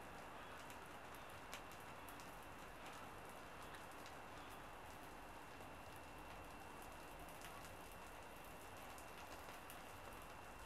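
Faint crackling of a small fire catching in tinder under split firewood: scattered sharp crackles over a steady low hiss.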